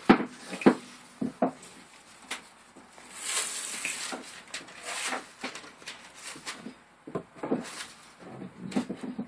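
Self-adhesive vinyl planks being laid by hand on a plywood subfloor: sharp knocks and taps as the planks are set down, and about three seconds in a couple of seconds of paper rustling as the release backing is peeled off and tossed aside. More taps and scuffs follow near the end as planks are pressed into place.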